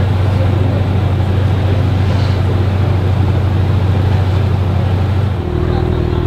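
Ford GT's 3.5-litre twin-turbo EcoBoost V6 idling steadily. Its tone shifts about five seconds in.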